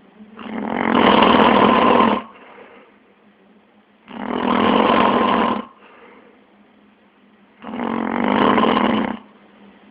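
A man snoring: three loud snores, each lasting a second and a half to two seconds, coming about every three and a half seconds, with quiet pauses between.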